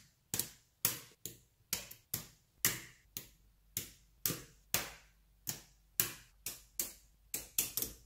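Magnetic rods snapping onto steel balls and onto each other: a series of sharp metallic clicks, about two a second at an uneven pace, each fading quickly.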